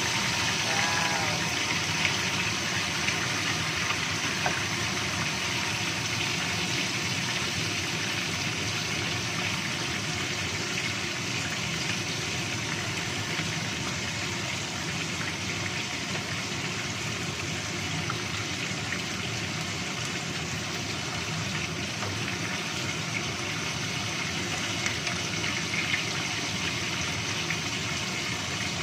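Whole tilapia frying in hot oil in a frying pan: a steady sizzle, with a few faint pops.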